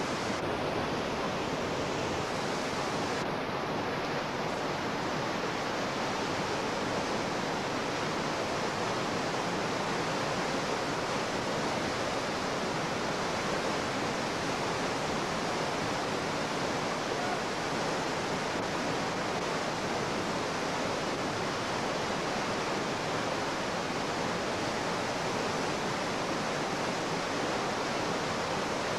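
Whitewater rapids rushing steadily, an even roar of churning water with no breaks.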